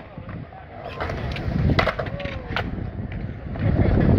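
Skateboards riding a concrete skatepark bowl: a low rumble of wheels rolling on concrete that swells near the end, with several sharp clacks of boards and trucks striking the concrete.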